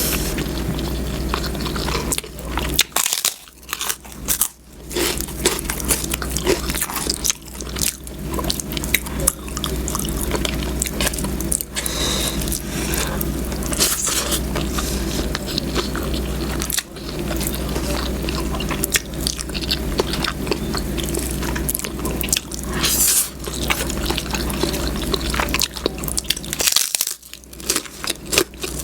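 Close-miked chewing and biting of food, with a dense run of irregular crunches and wet mouth clicks and two short lulls, over a steady low hum.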